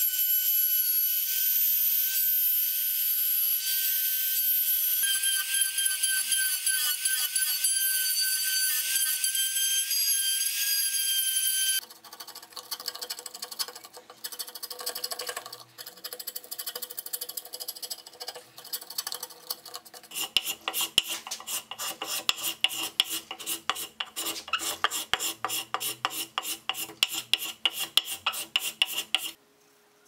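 A Makita trim router runs with a steady, high-pitched whine as it routs out the background of a basswood disc. About twelve seconds in it cuts off, and quick scraping cuts of a hand carving gouge paring the basswood follow, coming as fast, regular strokes in the second half.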